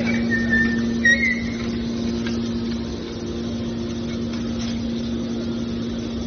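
Hydraulic scrap metal baler running with a steady hum from its power unit, with a brief high squeal in the first second.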